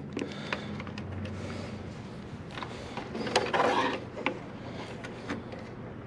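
A screwdriver backs out the screw holding an RV furnace's control board, and the board is worked loose from the furnace's metal housing. Light clicks, with a short scraping rattle a little past halfway.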